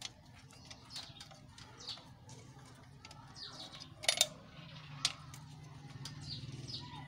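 A few sharp metal clinks from a 7 mm ring spanner on the bolts of a generator's AVR cover, the loudest about four seconds in, with birds chirping throughout.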